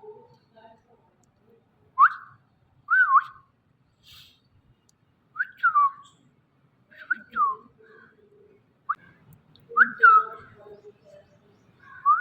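Pet green parrot whistling: a series of short, clear whistles, each sweeping up and then dropping in pitch, coming every second or two.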